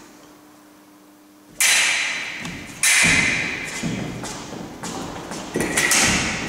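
Steel foil blades striking each other in sharp metallic beats that ring on, about a second and a half in and again about three seconds in. Near the end comes a quick run of blade contacts with thuds of feet on a wooden floor as a lunge goes in.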